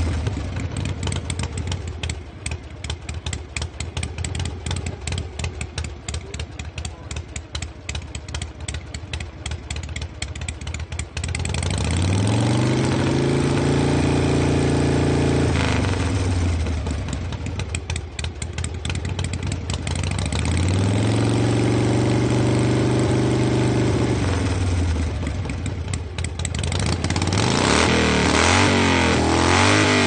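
Harley-Davidson Panhead V-twin motorcycle engine idling with an uneven, pulsing beat for about ten seconds. It is then revved up twice, each time held for a few seconds before the pitch drops back to idle, and revs again near the end.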